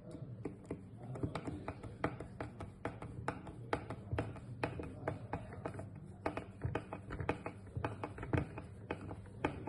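Espresso machine brew group being screwed together: a string of light, irregular metal clicks and taps, two or three a second, as a screw is driven to join the group's two halves.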